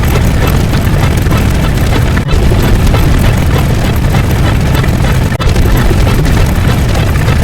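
A loud, dense wall of many sound effects layered and mixed together: booms and rumbling with music buried in it, too thick for any single sound to stand out. It drops out for a split second twice, about two and about five seconds in.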